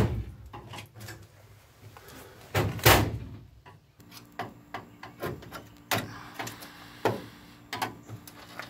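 A hand tool scraping, picking and tapping at rusted steel and flaking filler along a body seam of an old truck, heard as a run of small metallic clicks and scrapes. There is a sharper knock about three seconds in.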